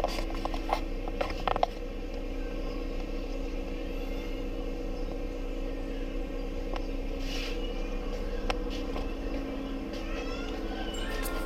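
A steady mechanical hum made of several fixed tones, with a few sharp clicks and knocks in the first couple of seconds.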